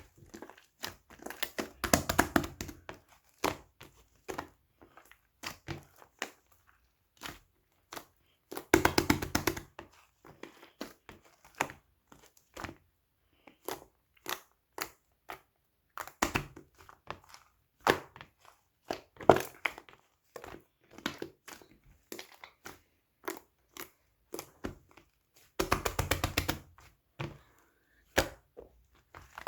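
White clay-type slime being squished and pressed in the hands, making many sharp clicking pops with denser crackling runs several times.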